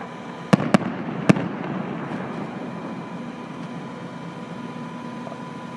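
Fireworks display: three sharp bangs from aerial shells in quick succession in the first second and a half, then a steady crackle and rumble of more bursts.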